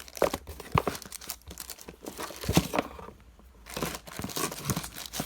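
Packaging crinkling and tearing as an angle grinder is unwrapped by hand: irregular crackles and snaps, with a short pause about three seconds in.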